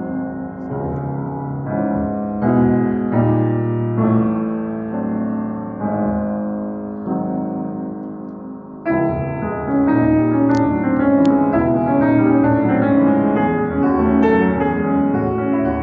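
C. Bechstein grand piano being played: slow held chords at first, then about nine seconds in a louder passage of quicker, denser notes.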